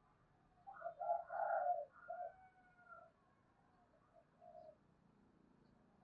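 Spotted dove cooing: one short phrase of coos about a second in, then a few fainter notes trailing off.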